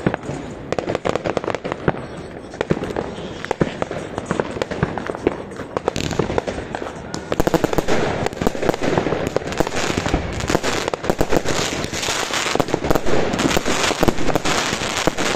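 Many fireworks going off at once, a dense run of bangs and crackles that grows busier and louder about six seconds in.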